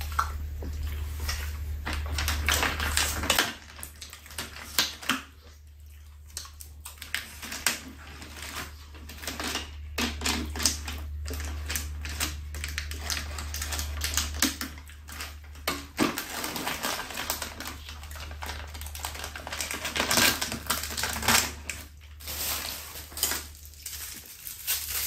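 Eating sounds: irregular smacking and clicking of chewing, with fingers peeling and handling sweet potatoes, over a steady low hum.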